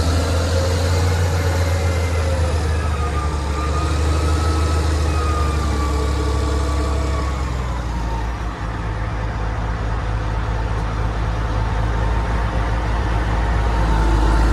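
Heavy construction machinery's diesel engine running steadily, with a whine that drifts slowly up and down in pitch.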